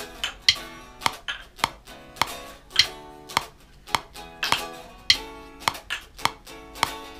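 Electric guitar picked in short, sharp notes, about two or three a second, each note cut off quickly.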